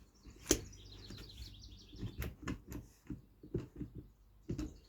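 A sharp knock about half a second in, followed by a run of light, irregular clicks and taps of wood and a clamp being handled during assembly. Faint high chirping follows the knock.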